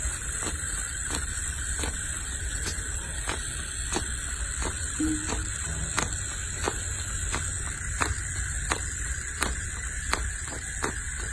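Baby macaque sucking milk from a feeding bottle: a regular run of short sucking clicks, about one and a half a second, over a steady hiss.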